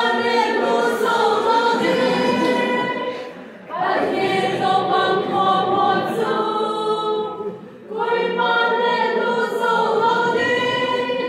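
A mixed choir of young men and women singing together in unison, in three long phrases with short breaks between them. No drum or other instrument is heard.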